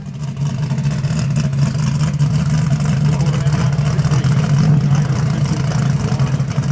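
A car engine running loudly and steadily with a low, choppy note that neither rises nor falls.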